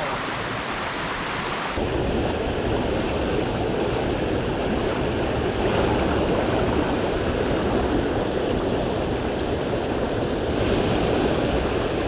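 Mountain stream water rushing steadily, with an abrupt change in its tone about two seconds in.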